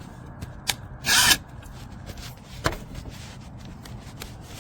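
Cordless brushless impact wrench given a brief trigger pull about a second in, its motor spinning up for about half a second, with a few sharp clicks from handling the tool before and after.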